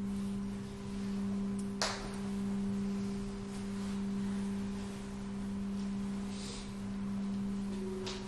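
Crystal singing bowls ringing in long sustained pure tones: a strong low tone with a slow pulsing swell, and a fainter higher tone above it. There is a brief click about two seconds in, and a new higher tone comes in near the end.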